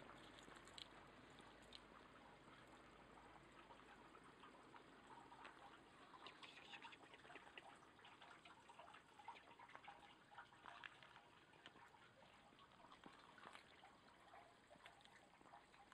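Near silence: faint outdoor ambience with soft, irregular small ticks and patter.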